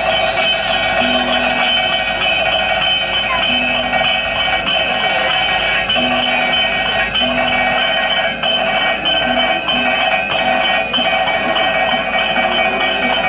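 Live traditional Kerala percussion accompaniment for a dance-drama: drums played with jingling bells and ringing cymbals, going on without a break.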